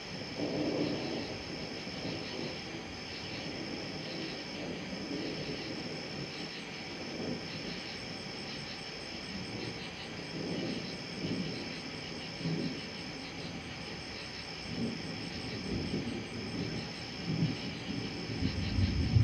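Night insects trilling steadily in a continuous high-pitched chorus with brief breaks. Beneath it, low rumbles of distant thunder come and go, growing louder near the end.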